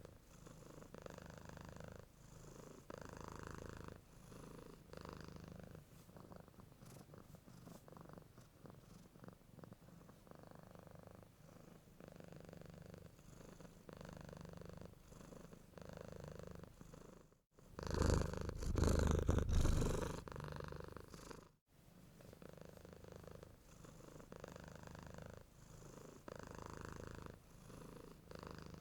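Domestic cat purring steadily, the purr swelling and fading with each breath about every second and a half. About two-thirds of the way in, a louder, closer stretch of purring lasts about four seconds, starting and stopping abruptly.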